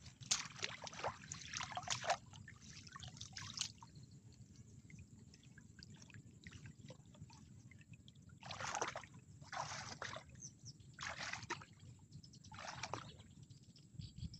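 Shallow muddy water sloshing and splashing: a flurry of splashes at the start, then four separate splashes at an even, unhurried pace, over a steady low rumble.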